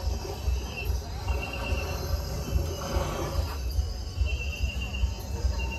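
Crickets trilling in repeated high-pitched bouts, over a steady low rumble.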